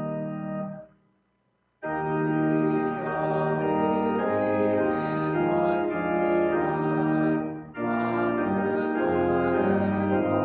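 Organ playing a hymn in sustained chords. It breaks off about a second in, falls silent for under a second, then resumes, with a shorter break between phrases near the end.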